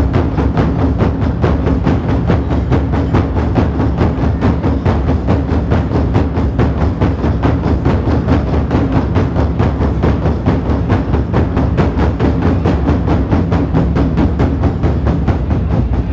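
An ensemble of large Chinese barrel drums beaten with sticks in a fast, unbroken stream of strokes.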